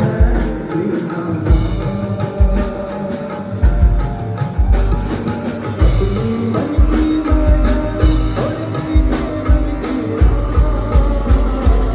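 Music with a drum kit and repeated deep bass hits under sustained instrument tones.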